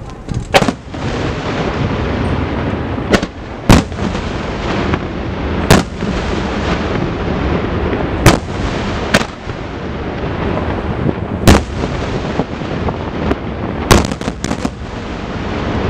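Aerial firework shells bursting: about eight sharp, loud bangs at irregular gaps of one to three seconds, with a quick cluster of cracks near the end, over a steady noisy background.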